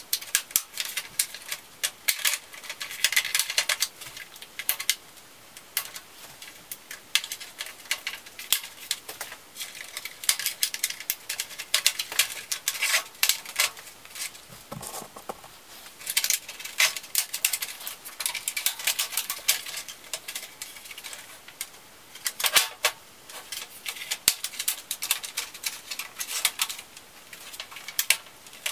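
A plastic guitar pick prying around the seam of a Lenovo ThinkPad T540p's plastic palmrest: irregular runs of sharp plastic clicks and scraping, in bursts with short pauses between.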